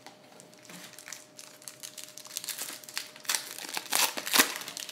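Foil wrapper of a Topps Finest baseball card pack crinkling and tearing as it is ripped open by hand. The crackling grows denser and louder through the second half.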